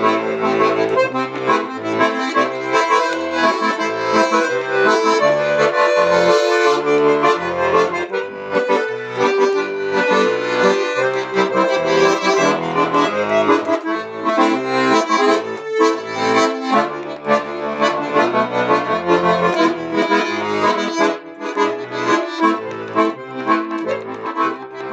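Bayan (button accordion) playing an instrumental interlude: a melody over a steady rhythmic bass accompaniment.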